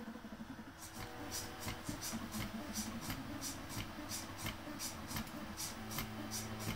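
Sphere-O-Bot egg-drawing robot at work: its NEMA 17 stepper motors hum in short steady tones that start and stop, and from about a second in the pen scratches on the eggshell in quick strokes, about four a second.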